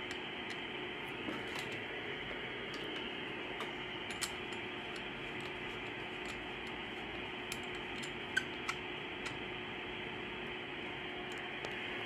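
Steady static hiss from the receiver audio of a uSDX (CN-SDX) QRP SDR transceiver, cut off sharply above the voice band by its filter, with a faint steady tone under it. Several small clicks from the board being handled sound over it.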